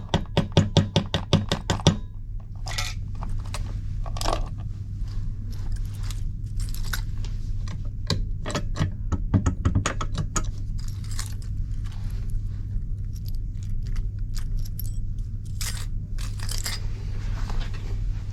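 A key tapped rapidly in the lock of a cheap home safe, about five sharp metal taps a second for the first two seconds. Scattered clicks, key-jangling and scraping of the key and lock parts follow over a steady low hum. This is the tapping by which a cheap safe lock whose key won't turn is made to give way.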